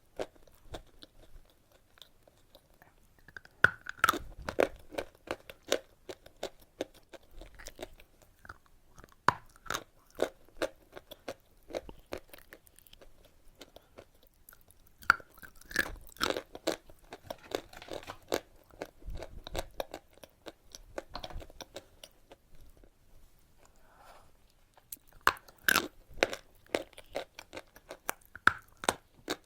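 Close-up crunching and chewing of eating chalk: sharp, brittle crunches come in several bouts with short quieter pauses between them.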